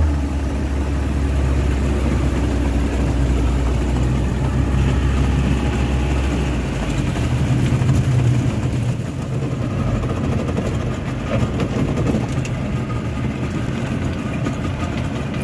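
Speedboat outboard engine running steadily, with a rushing noise of wind and water over its hum. About six or seven seconds in, the deepest part of the engine hum drops away and the engine note changes.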